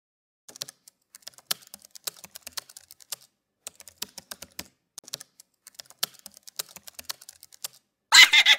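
Computer keyboard typing sound effect: a long run of irregular, quick key clicks as on-screen text is typed out. Near the end a louder, rapid rattling starts.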